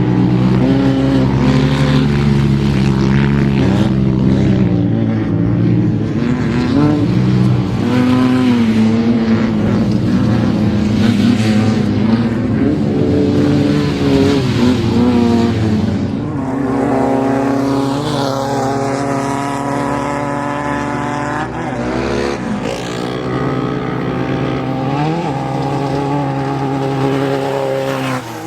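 Off-road race car engines running hard and revving, the pitch rising and falling as the cars accelerate and ease off. About halfway through, the engine note changes to a higher, busier sound.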